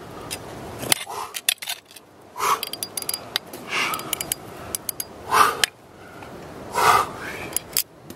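A dry-tooling climber breathing hard through his moves: four forceful exhalations about every second and a half, mixed with sharp clicks of ice-axe picks and metal gear on rock.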